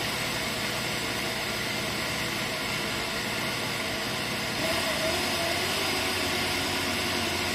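Vitamix blender motor running steadily, grinding roasted white and black sesame seeds in its jar to a rough chop, a little louder about halfway through.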